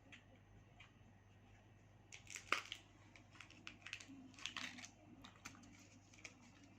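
Faint crinkling and small clicks of a plastic wrapper being handled and opened, with one sharper click about two and a half seconds in, as the toy hidden in the chocolate is unwrapped.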